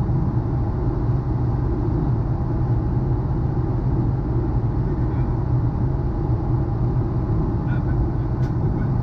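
Steady cabin noise inside a Boeing 737-400 in flight: the CFM56 turbofan engines and rushing airflow, an even roar with a strong low hum.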